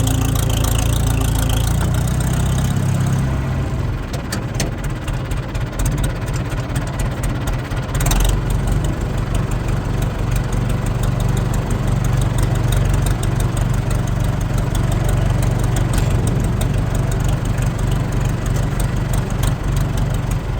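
International Harvester 674 tractor's diesel engine idling steadily after a cold morning start, with a brief louder knock about eight seconds in.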